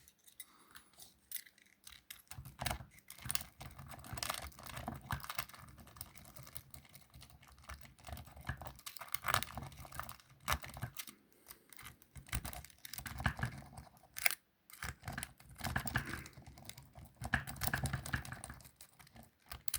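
A key being worked in a wafer lock: metal clicking, scraping and rattling as it is pushed in, jiggled and turned against the wafers, in irregular bursts.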